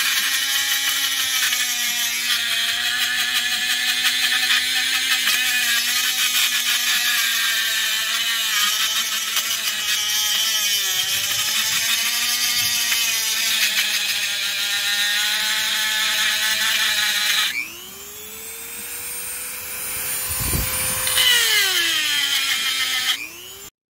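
Dremel rotary tool grinding through a stuck steel bearing outer race in a motorcycle wheel hub, to cut the race in half and free it: a steady high whine over a harsh grinding hiss. About 17 seconds in the grinding stops and the motor's whine jumps higher as it spins free. It drops back as the bit bites again near the end, then cuts off.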